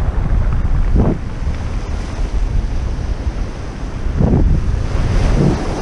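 Wind buffeting the microphone with a loud low rumble, over small waves washing onto a pebble beach, with surges about a second in and twice near the end.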